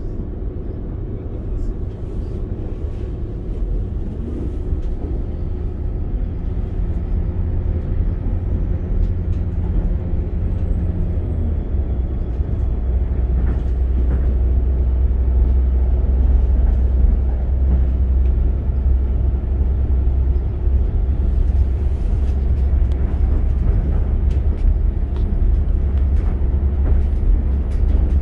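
Northern Class 195 diesel multiple unit running at speed, heard inside the passenger saloon: a steady low rumble of the underfloor diesel engine and the wheels on the track. It grows louder over the stretch, and the low engine hum drops and strengthens about twelve seconds in.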